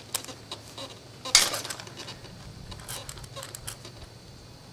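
Wrench clinking and clanking against a bicycle pedal spindle and crank arm as a corrosion-seized pedal is strained loose, with one louder metallic clank about a second and a half in.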